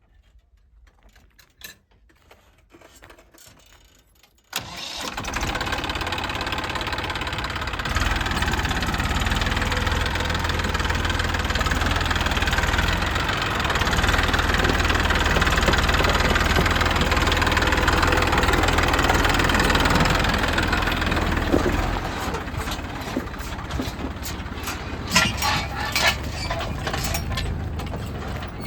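Diesel engine running. It comes in abruptly about four and a half seconds in, grows louder for a while, then eases back, with rattling clanks near the end.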